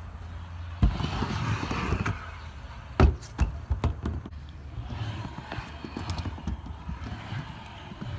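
Kick scooter riding a skatepark ramp. A clack as it drops in about a second in, then wheels rumbling down the ramp; a loud clack about three seconds in is followed by several smaller knocks, then more rolling.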